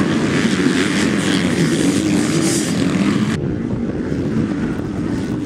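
Several motocross bikes racing, their engines revving together in a dense, steady buzz. About three seconds in, the sound cuts abruptly to a duller recording of the engines.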